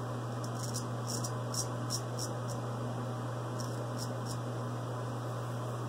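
Boker straight razor scraping stubble off the lathered chin in short strokes, about eight quick scrapes in the first two and a half seconds and three more a little later, over a steady low hum.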